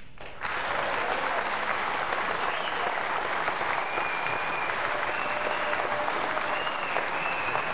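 Audience applauding, breaking out about half a second in and keeping up steadily.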